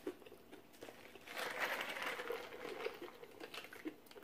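Faint crackly eating sounds of crispy fried chicken being bitten and chewed, with a drink sipped through a straw, swelling in the middle and fading near the end.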